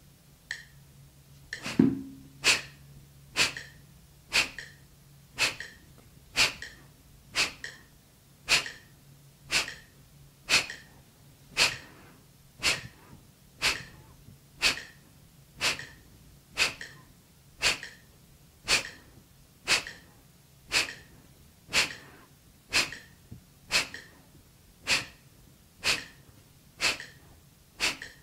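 A woman's sharp, short forced exhalations in a steady rhythm, about one a second, paced by a metronome. This is a round of about thirty quick exhales in a yogic breathing exercise.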